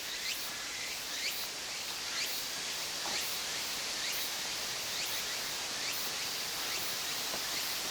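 Outdoor countryside ambience: a steady hiss with a faint high chirping pulsing about twice a second, and short rising calls repeated in the first few seconds.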